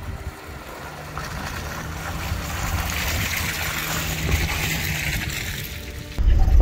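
Water splashing and rushing around a V8 Toyota 4Runner as it fords a river, with the engine running low and steady underneath; the splashing swells toward the middle. About six seconds in, a much louder low rumble cuts in suddenly.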